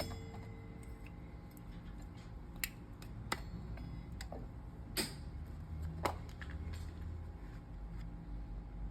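A few sharp, separate metallic clicks and clinks of a wrench and brake parts being handled during motorcycle brake work, over a low steady hum.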